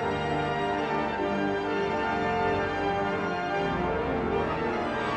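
Pipe organ of Cologne Cathedral playing held chords, several notes sounding together and the harmony changing every second or so.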